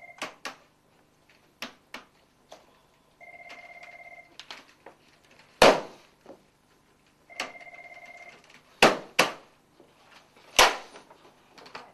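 Telephone ringing in about one-second electronic trills roughly every four seconds, with scattered sharp clicks and loud thumps between the rings, the loudest about halfway through and three more near the end.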